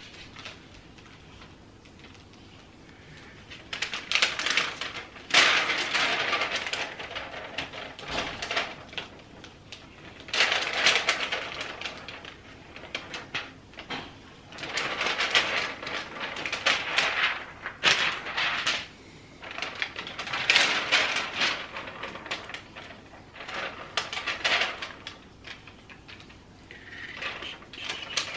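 Plastic window clings and their backing paper rustling and crinkling in repeated bursts of a second or two, as the clings are handled and pressed onto the window glass.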